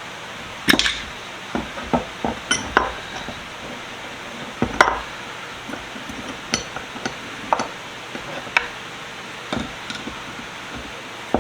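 Metal tools clinking and tapping against a stubborn steel split ring on a vise as it is pried open: about a dozen sharp metallic taps at irregular intervals, the loudest about a second in and again near five seconds.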